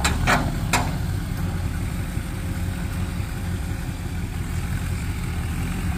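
Massey Ferguson tractor engine idling steadily, running after starting trouble that was blamed on the fuel supply and carburetor. Three sharp clicks sound in the first second.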